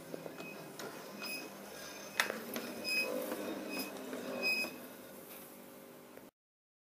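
Model steam locomotive running over the track, a low rumble with irregular clicks and ticks as its wheels cross rail joints and pointwork, loudest around three to four and a half seconds in. The sound cuts off abruptly about six seconds in.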